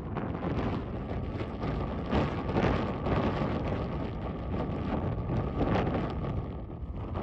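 Wind buffeting the microphone in gusts. A faint steady tone sounds underneath from about a second in until near the end.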